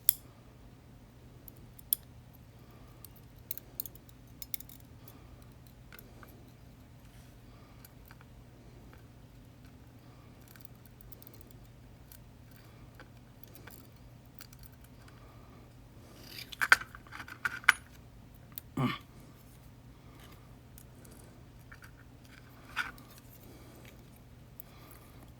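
Scattered small metallic clicks and taps from handling the parts of a disassembled Yale 2000 Plus lock (its pins, springs and cylinder) and small tools, with a brief cluster of louder clinks about two-thirds of the way through. A faint steady hum lies underneath.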